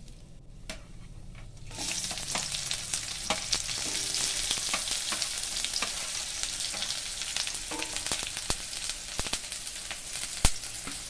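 Sliced onions frying in hot oil in a kadai: a dense sizzle that starts suddenly about two seconds in as they hit the oil, then keeps going with scattered crackles and pops.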